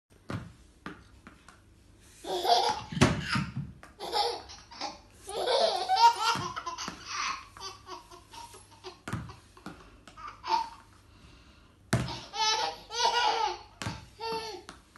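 Baby laughing in repeated bouts, with a few sharp knocks as a small ball hits the tile floor.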